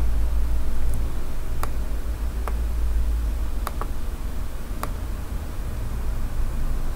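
A handful of sharp computer-mouse clicks, about a second apart with two in quick succession midway, over a steady low electrical hum.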